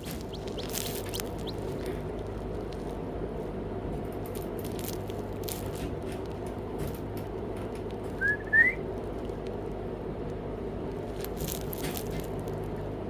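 Newly hatched Serama chick peeping twice in quick succession about eight seconds in, two short rising peeps, over a steady low background hum with a few faint clicks.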